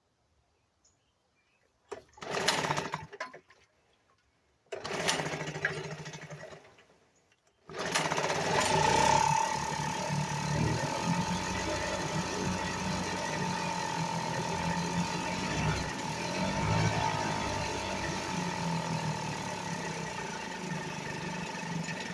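1975 Sears Gamefisher two-stroke outboard motor being started for the first time after a carburetor repair: it fires and dies twice, then catches about eight seconds in and keeps running steadily with a high, even whine.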